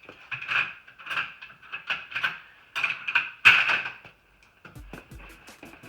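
Metal sockets and hand tools clinking and clanking, with a short metallic ring after each knock, as a smaller socket is picked out of the set. Background music with a steady beat comes in near the end.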